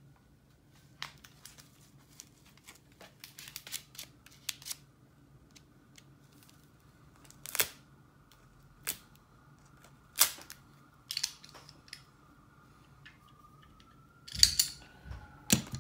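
Knife packaging being opened by hand: scattered clicks, snaps and short rustles of wrapping being pulled and torn, with a few sharper snaps spread through and a louder burst of rustling near the end.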